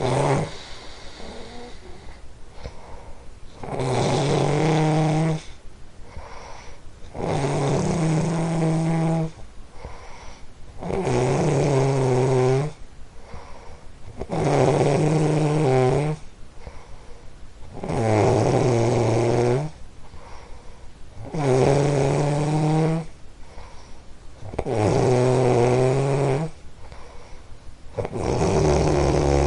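Steady, rhythmic snoring. Each snore is a loud pitched rattle lasting about one and a half to two seconds, coming about every three and a half seconds, with quieter breathing in between; about eight snores in all.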